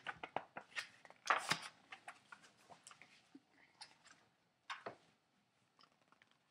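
Pages of a picture book being handled and turned: a dense run of paper rustles and crinkles for the first two seconds, then scattered softer rustles and one sharper one about five seconds in.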